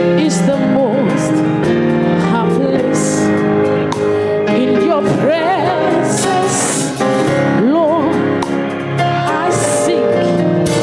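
Gospel worship music: a singer's voice gliding and curling through runs over held instrumental chords.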